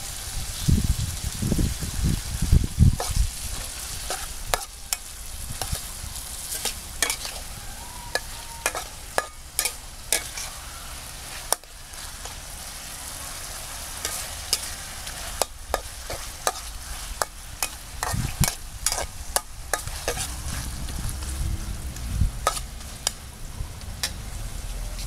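Pork pieces sizzling in a metal wok while a metal wok spatula stirs and turns them, with frequent sharp clinks and scrapes of the spatula against the pan. A few low thumps in the first few seconds and again later.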